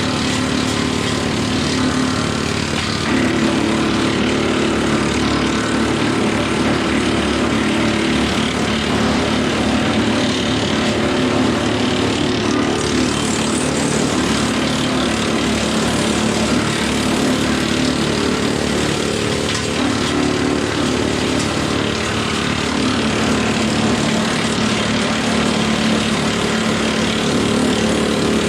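Woodmaxx WM8 PTO wood chipper driven by a John Deere 4066R diesel tractor, running steadily and loudly throughout, the tractor's engine drone under the chipper's whirring rush.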